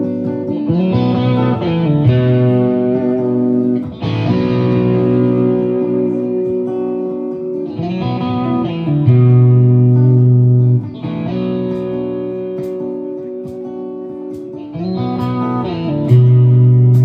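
Background music led by guitar: sustained chords that change every few seconds, with a louder low note twice.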